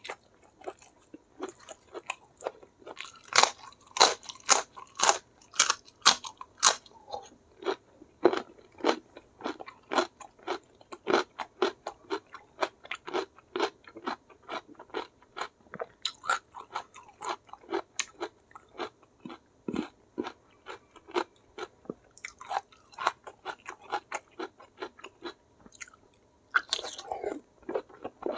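Close-miked eating: wet chewing with many sharp, crisp crunches, loudest and densest from about three to seven seconds in. Steadier chewing follows, with another louder burst of crunching near the end.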